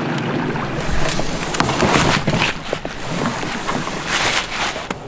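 Leaves and branches rustling and scraping close by, a run of irregular swishes.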